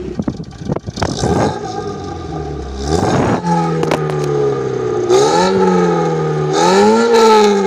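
VAZ car's four-cylinder engine with a spacer in place of the catalytic converter and an arc-welded muffler, revving up twice, each time rising quickly in pitch and sinking slowly, after a few rushes of noise in the first seconds.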